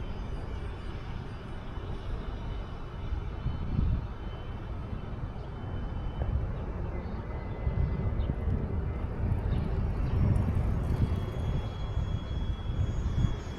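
Wind rumbling on the microphone, with the faint, thin high whine of a mini F-35 RC jet's 30 mm electric ducted fan in flight, coming and going.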